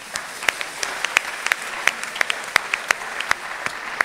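Congregation applauding: many hands clapping together, with a number of loud single claps standing out above the rest.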